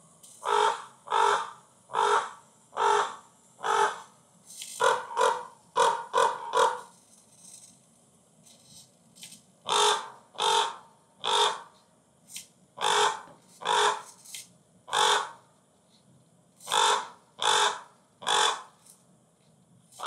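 Recorded crow caws played through small desktop speakers by an animatronic raven's sound board, its beak opening automatically with each caw. The caws come in quick runs of three to five with short pauses between the runs, over a faint steady background.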